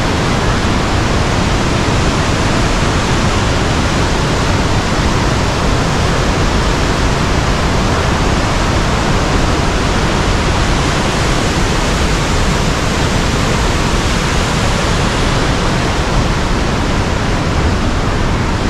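Steady, loud rushing of a flood-swollen mountain river in spate, its muddy water churning over boulders.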